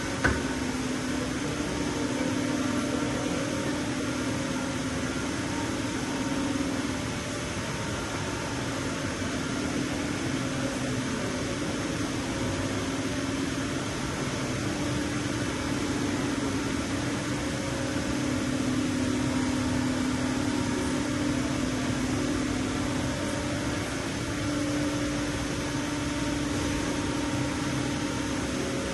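Parpas THS 25 CNC milling machine running, a steady mechanical hum with a low tone that swells and eases slightly every few seconds.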